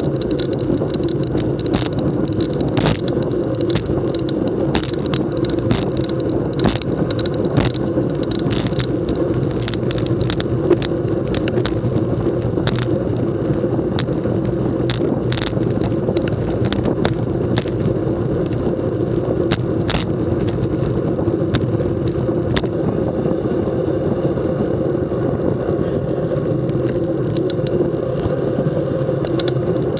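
Steady rush of wind and road noise on a camera mounted to a vehicle moving at speed, with frequent sharp clicks and rattles as it goes over bumps in the road.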